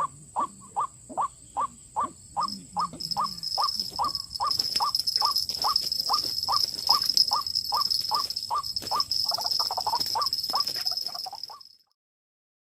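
White-breasted waterhen (ruak-ruak) calling a harsh, monotonous note over and over, about two and a half calls a second. A steady high-pitched drone joins about two seconds in, and everything cuts off suddenly near the end.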